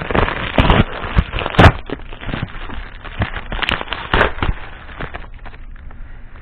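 A bag being handled and opened, rustling and crackling in a run of irregular sharp crackles that thin out near the end.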